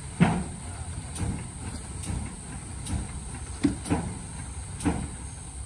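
Tow truck engine running steadily as a low rumble, with about seven sharp knocks at irregular intervals, the loudest in the first second.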